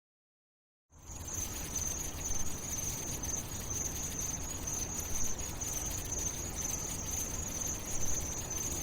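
A steady high-pitched insect trill like crickets, over low background noise. It starts about a second in, after a moment of silence.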